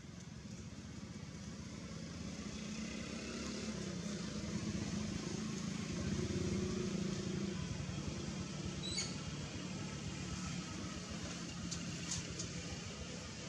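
Low steady hum of a motor vehicle running, swelling in the middle and easing off again, over background noise; a few faint, brief high chirps about nine and twelve seconds in.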